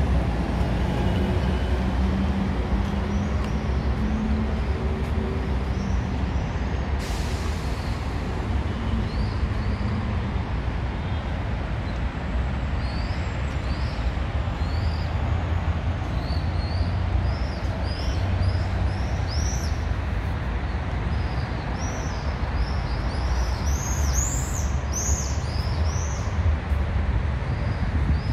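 Street traffic rumbling steadily, with a short hiss about seven seconds in. Birds chirp over it, more often from about nine seconds in and busiest near the end.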